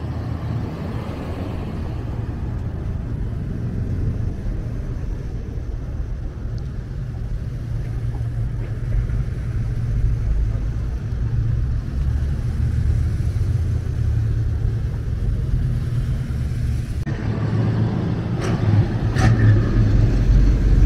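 Car engines running with a low rumble that grows gradually louder, with a couple of short sharp clicks near the end.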